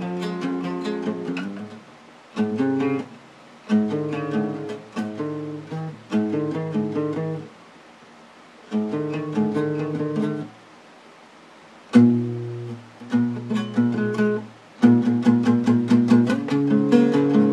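Guitar strumming chords in short phrases, broken by several brief pauses where the sound drops away.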